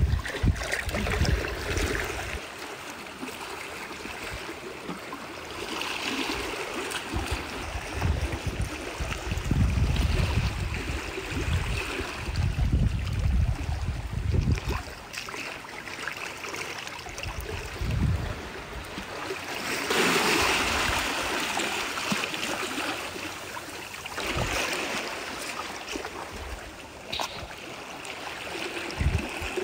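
Sea water washing and trickling among shoreline rocks, with irregular gusts of wind buffeting the microphone.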